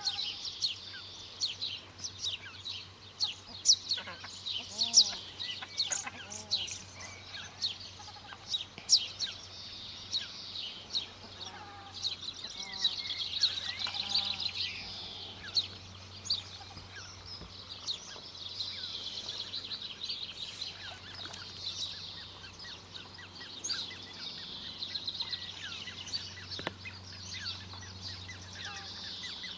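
Australasian crested grebe chicks calling: a dense run of short, high-pitched peeps repeated several times a second, with a few lower calls that rise and fall about five and thirteen seconds in.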